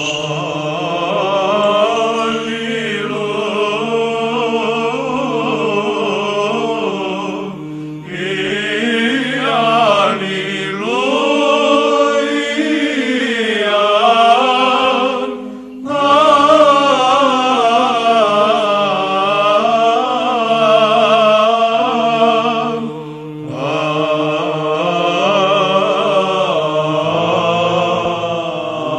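Orthodox church choir singing a slow, drawn-out Byzantine-chant Alleluia over a steady held low drone note. It comes in four long phrases with short breaks between them.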